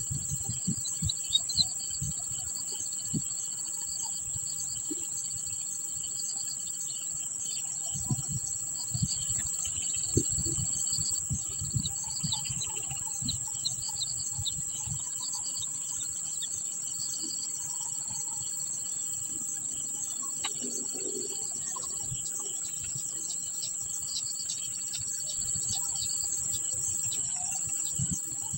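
Insects shrilling in one steady high-pitched drone, with scattered short bird chirps over it. Intermittent low thumps come and go, heaviest about eight to eleven seconds in.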